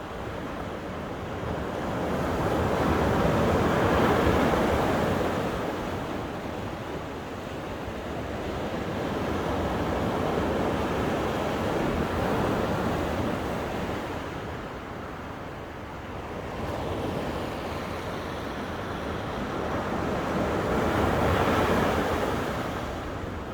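Sea waves breaking and washing up a beach, the surf swelling and ebbing in three slow surges.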